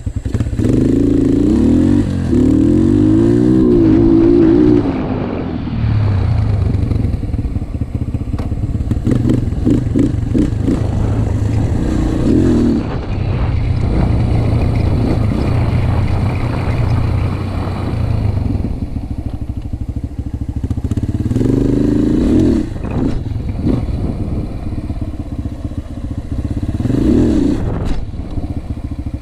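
Yamaha TT-R125 dirt bike's single-cylinder four-stroke engine running while being ridden around, revving up and dropping back several times as the throttle is worked.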